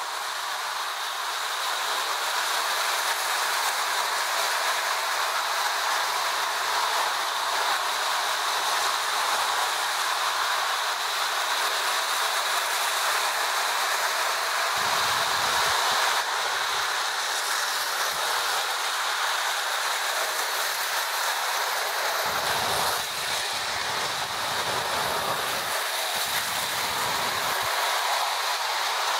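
Toy electric trains running on tinplate track: a steady rattling hiss of small wheels and motors on the metal rails. A deeper rumble comes in briefly in the middle and again for several seconds near the end, as a train passes close by.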